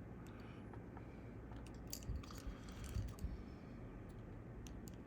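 A cluster of small sharp clicks and crackles between about two and three and a half seconds in, from a capacitor and small hand tools being handled at a circuit board, over the steady low hum of an air-conditioning unit.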